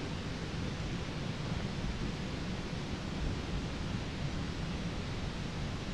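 Steady wind noise on the microphone: a low, uneven rumble under an even hiss.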